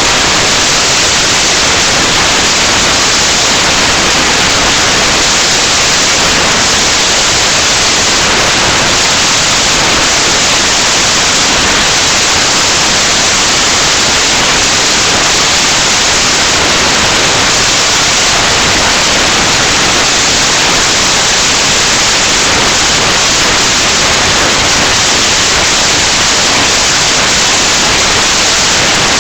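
Loud, steady static hiss with no change in level or tone.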